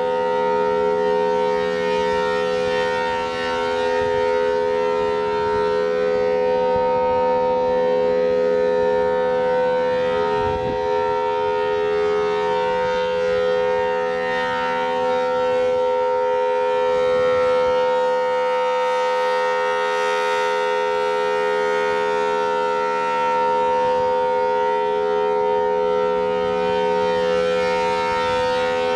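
Federal Signal Thunderbolt 1000T civil defense siren sounding its steady Alert signal, a loud held tone with no rise or fall in pitch.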